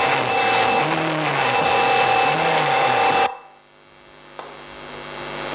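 Soundtrack of a projected silent horror-film clip: a steady noisy drone with held tones and a slow, repeating rise-and-fall beneath it. It cuts off abruptly about three seconds in, at a cut between clips, leaving a faint hum that slowly swells.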